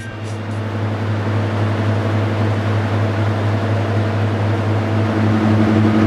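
British Rail Class 55 Deltic locomotive's Napier Deltic two-stroke opposed-piston diesel engines idling with a steady low drone. A higher hum grows louder about five seconds in.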